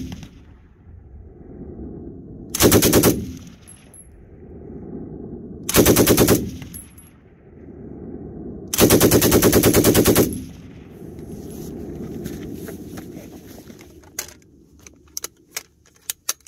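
Bren light machine gun firing three bursts on full auto, the last the longest, each followed by a low rumbling echo that dies away. Near the end come a few sharp metallic clicks as the gun is handled with its magazine off.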